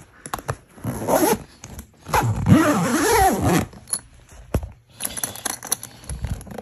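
Zipper on a Think Tank Logistics Manager 30 V2 rolling camera bag being pulled shut. There is a short stroke about a second in, then a longer, louder run from about two seconds, followed by a sharp click and fainter scraping.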